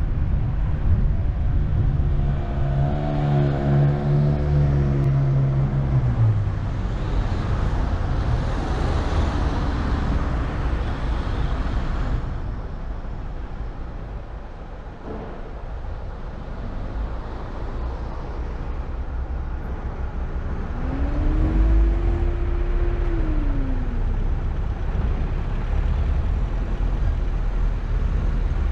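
Car driving slowly through city streets: low engine and road rumble with some wind noise. A pitched engine drone holds for a few seconds and drops away about six seconds in, and later a short engine tone rises, holds and falls.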